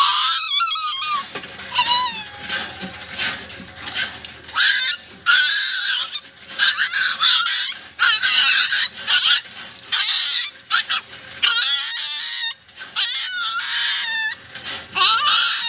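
Puppy squealing and crying over and over in high, wavering cries while being bathed under water pouring from a hand pump.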